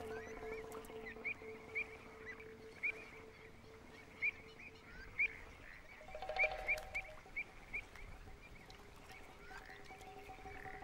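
Pied avocets giving short, sharp alarm calls again and again at an intruding shelduck, at irregular intervals and coming thickest about six seconds in. Soft sustained music plays underneath.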